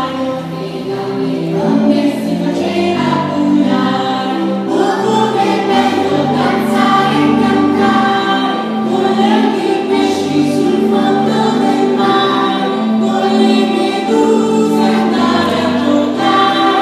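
A song sung by a choir of voices over a steady musical accompaniment.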